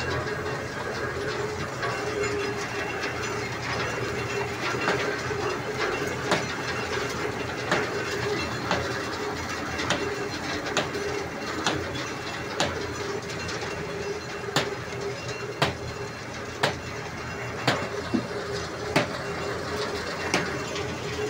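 Asphalt drum mix plant machinery running: conveyor belts, electric motors and the vibrating screen make a steady mechanical drone with a hum. From about five seconds in, sharp clacks come roughly once a second.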